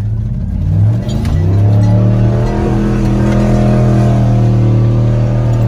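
Pickup truck engine revving up about a second in, then held at high revs under hard acceleration, heard from inside the cab, with music playing underneath.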